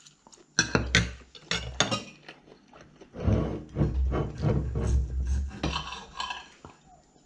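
Steel knife and fork clinking on a ceramic dinner plate, a quick run of sharp clinks in the first two seconds, then a few seconds of softer rubbing and knocking handling noise.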